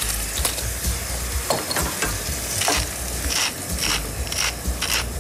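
Rice sizzling in a stainless steel pot as it takes up the white wine, stirred with a wooden spoon in a run of short scraping strokes about half a second apart.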